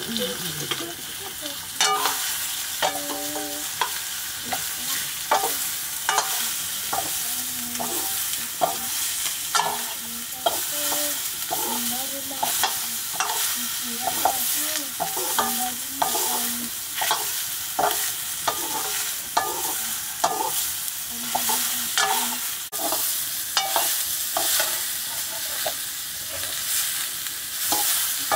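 Sliced pumpkin sizzling as it fries in a metal wok, with a long metal ladle scraping and clanking against the pan as it is stirred. From about two seconds in there are irregular clanks, one or two a second, over a steady sizzle.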